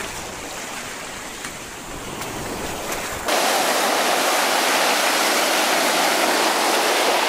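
Surf breaking and washing over a pebble beach, a steady rush of water. For the first three seconds wind rumbles on the microphone under it; then the rush of surf suddenly becomes louder and fuller and stays steady.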